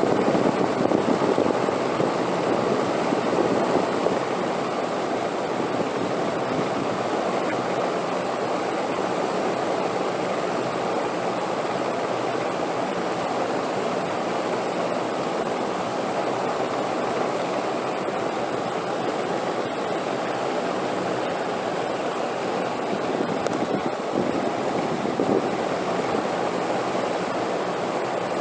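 Steady rushing wind, a little stronger for the first few seconds, then even with small gusts near the end.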